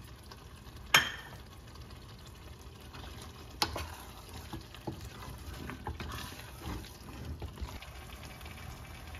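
Chicken curry simmering in a pot on the stove while it is stirred and spiced, with a sharp utensil clink about a second in, another a few seconds later, and lighter knocks in between.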